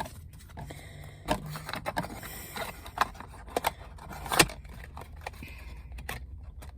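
Hands handling the contents of a Pokémon trading card deck box: scattered scrapes and clicks, the sharpest click about four and a half seconds in.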